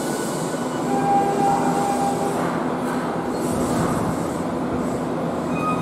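Subway train pulling into an underground station and braking to a stop, its running rumble overlaid by a steady squealing whine of brakes and wheels for a second or so early in the arrival.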